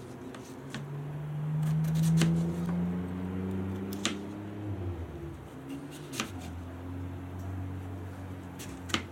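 Small knife slicing a potato into chips on a plastic cutting board: a handful of sharp taps as the blade meets the board. Under them runs a low steady hum that is loudest about two seconds in.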